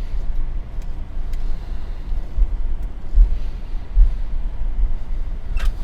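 Low, steady rumble inside a Boeing 747 cockpit as the jet taxis after landing, with regular heavier low thumps under a second apart. A short click comes near the end.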